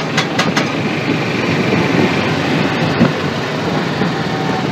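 John Deere Gator 2x4 utility vehicle driving, its engine running steadily with a clattery rattle from the vehicle, heard from the driver's seat. A few sharp clicks come in the first half second.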